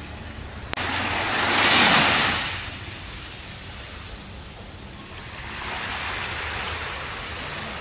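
Small waves washing onto a sandy beach: one loud surge that peaks about two seconds in and falls away, then a softer wash building near the end. A sharp click comes just before the first surge.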